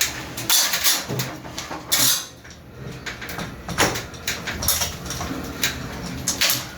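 Irregular clicks, knocks and clatter as plastic water pipes are cut and handled.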